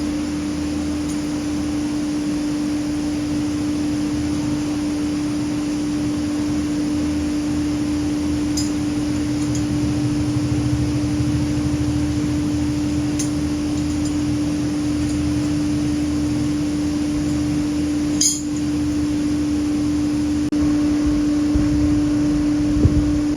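Steady machine hum with one strong constant tone over a low rumble, with a few faint clicks and one sharper clink near the end.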